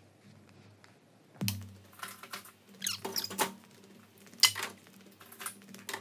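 Split firewood being set into the steel firebox of a Longwood wood furnace: a dull thud about a second and a half in, then scattered knocks and short scrapes of logs against the metal, the sharpest about four and a half seconds in.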